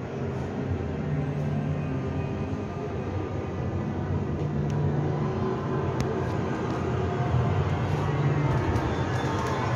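Steady low rumbling drone with faint held tones, the ambient sound design of a horror walk-through attraction, with a few faint clicks in the second half.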